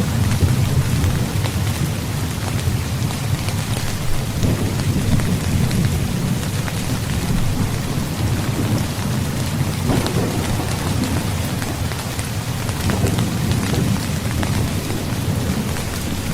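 Heavy, steady rain with a low rolling rumble of thunder underneath, swelling in the first couple of seconds and again near the end.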